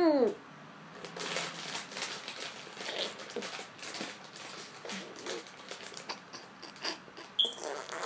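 Wet smacking and squelching of a mouth stuffed with marshmallows, an irregular run of clicks and smacks for several seconds. Right at the start, a short muffled vocal sound that rises and falls in pitch.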